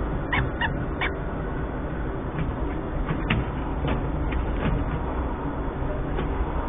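Steady background rumble and hiss on a webcam microphone. Over it come short, sharp bird chirps: three close together in the first second, then a few fainter ones about three to five seconds in.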